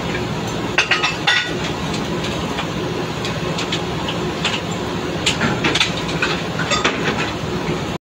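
Drilling-rig machinery running with a steady hum, over which steel drill pipe and pipe-handling tools on the rig floor clank and clink sharply several times, with a cluster about a second in and another between about five and seven seconds.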